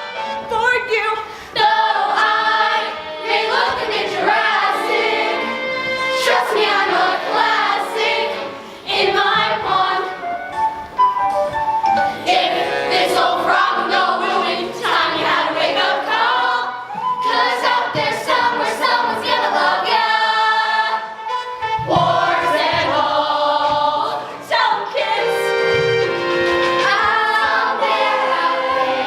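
Children's voices singing a musical-theatre song together in chorus, with music.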